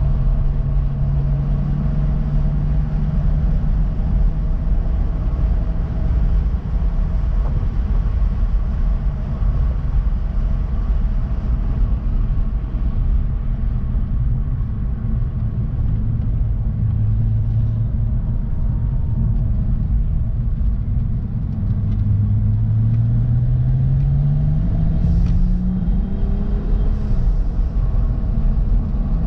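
2011 BMW 135i's N55 turbocharged straight-six heard from inside the cabin at speed on track, a steady engine drone over heavy road and wind rumble. Through the middle the revs sag. In the last third the engine climbs steadily in pitch under acceleration, then falls back sharply near the end.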